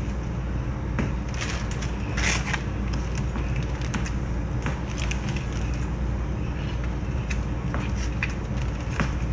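A plastic oven bag crinkling and rustling in irregular short crackles as hands squeeze lemons inside it, over a steady low hum.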